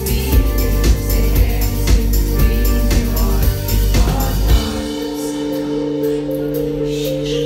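Live pop song played over a concert PA: a woman singing with a synth-pop backing and a heavy bass beat. About four and a half seconds in, the beat and bass drop out, leaving sustained keyboard chords.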